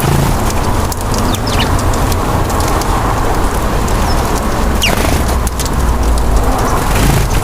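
Steady outdoor noise with a strong low rumble, over which a bird gives a couple of short falling calls, about a second and a half in and again about five seconds in.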